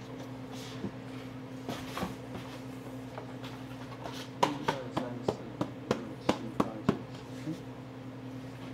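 A run of about nine quick taps on a tall stack of cardboard cake boxes, roughly three a second, in the middle of the stretch. A steady low hum runs underneath.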